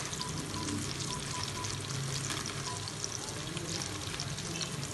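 Onion, tomato and spice masala frying in oil in a metal pot: a steady sizzle with small crackles.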